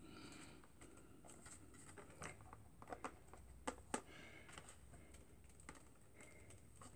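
Faint scattered clicks and taps of a clear plastic food container being handled, its paper-towel lining pressed down by hand, with the two sharpest taps a little under four seconds in.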